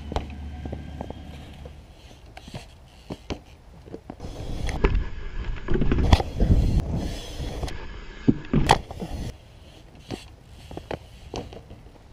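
BMX bike riding on a concrete skatepark: tyres rolling, with wind rumbling on the microphone and sharp knocks and clacks of the bike on the concrete, loudest about eight and a half seconds in.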